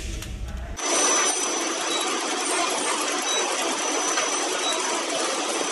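Steady noise of running machinery on a wave-soldering production line, with a thin high whine over it. It starts abruptly just under a second in, replacing a low hum.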